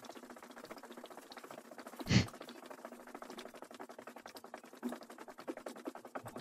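Fast, continuous pattering taps with one heavier thump about two seconds in.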